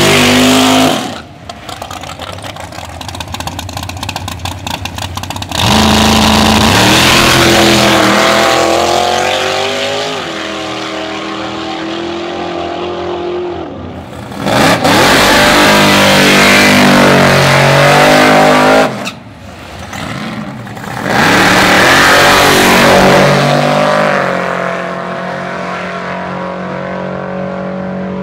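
Drag racing cars' engines at full throttle, launching and accelerating hard down the strip on test passes, each run rising steadily in pitch. The runs are broken by abrupt cuts to quieter, choppy idling.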